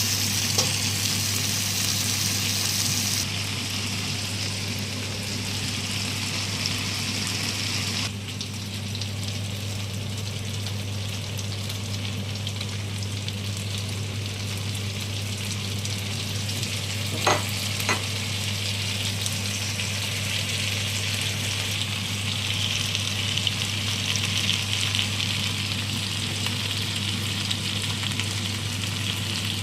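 Pepper garlic chicken sizzling and being stirred as it fries in a pan, over a steady low hum. The sizzle eases about a third of the way in, and two sharp clinks come a little past halfway.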